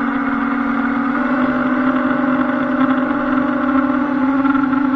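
A multirotor camera drone's motors and propellers hum steadily in flight, with a slight shift in pitch about a second in.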